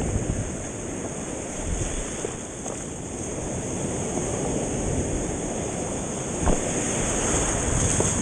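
Surf washing in and out, with wind noise on the microphone and one sharp knock about six and a half seconds in.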